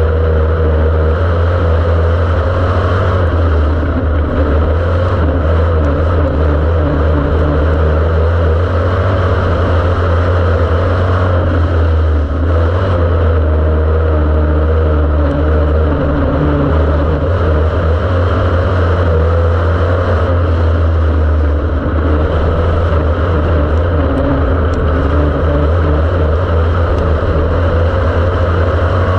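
Dirt-track race car's engine running hard at racing speed, heard from inside the cockpit as a loud, steady drone with a few slight dips.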